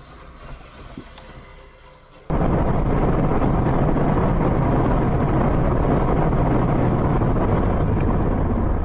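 Loud, steady rush of wind and road noise from a car driving at speed. It starts abruptly a couple of seconds in, after a short stretch of faint, quieter vehicle sound.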